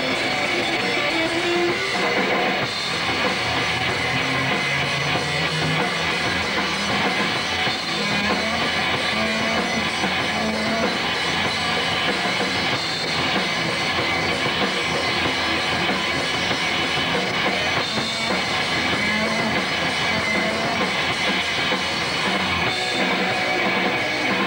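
Rock band playing live, with electric guitar and drum kit, loud and continuous.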